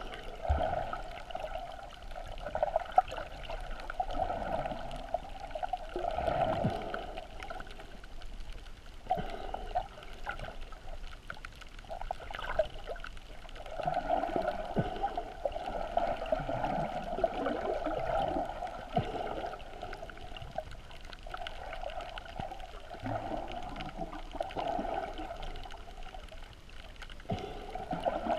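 Muffled underwater water sound picked up through a GoPro's waterproof housing while snorkelling just below the surface: sloshing and swirling water that rises and falls in slow surges.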